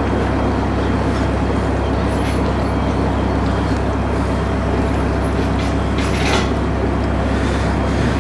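A narrowboat's inboard diesel engine running steadily while under way, a constant low hum.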